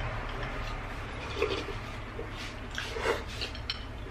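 Eating sounds close to the microphone: wet chewing and sipping of soup from a spoon, a few short smacking noises over a steady low hum.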